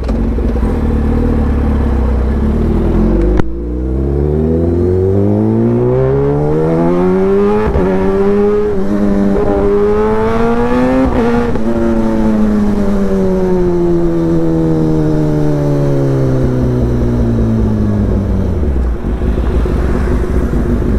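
Kawasaki ZX-10R inline-four with an SC Project exhaust, heard from the saddle. A steady low rumble is broken by a loud sharp crack about three seconds in. The exhaust note then climbs steadily for about eight seconds as the bike accelerates hard, and falls away steadily as it slows.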